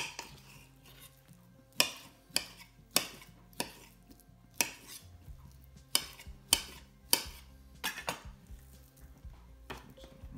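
A chef's knife cutting raw beef and striking a hard chopping board: about a dozen sharp knocks at an uneven pace, one with each cut.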